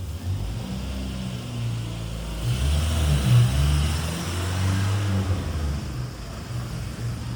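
A car driving and accelerating, a low engine and road rumble that swells to its loudest about three seconds in.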